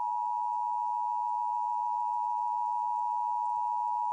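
Emergency Alert System attention signal: a steady two-pitch alert tone, held without a break.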